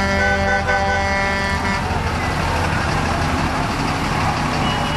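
A truck horn held in one steady blast, stopping about two seconds in, with a short pulsing higher tone over it near the start. A steady low engine rumble runs underneath.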